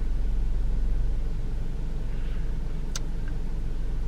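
Steady low rumble of a car idling, heard from inside the cabin, with one sharp click about three seconds in.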